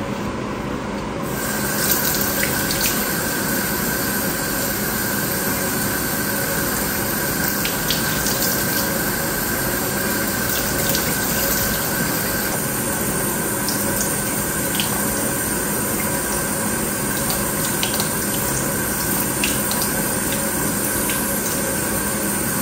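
Kitchen tap turned on about a second in, running steadily as water splashes over raw chicken pieces being rinsed by hand in the sink.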